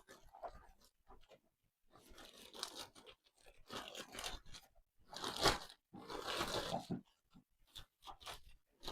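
Packaging crinkling and tearing in several irregular bursts, the loudest about five and a half seconds in, as it is pulled off and handled.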